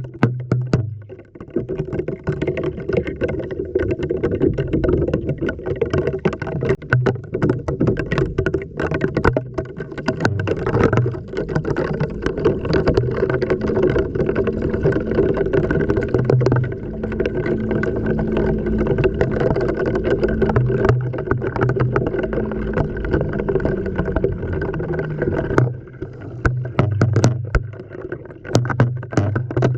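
Sound from inside an LG washing machine drum during a wash: the motor humming steadily while water sloshes and the camera knocks against the drum, with repeated sharp clicks.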